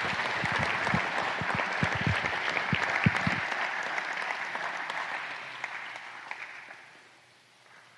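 Audience applauding, fading away near the end, with a few low thumps in the first three seconds.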